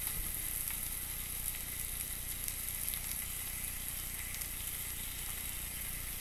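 Steaks sizzling steadily on a hot cast iron grill pan, with faint scattered pops.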